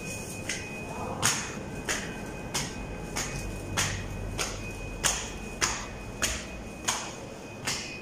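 Footsteps on a hard indoor floor: about a dozen evenly paced steps, a little under two a second.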